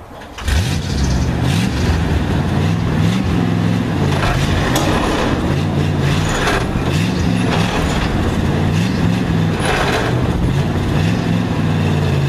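1959 Chevrolet Viking tow truck's engine coming in suddenly about half a second in, then running hard, its pitch rising and falling repeatedly as the truck works under load moving a shipping container.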